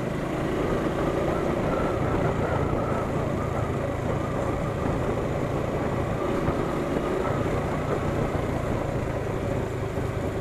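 Motorcycle engine running steadily while riding at low cruising speed, with a haze of wind and road noise over it.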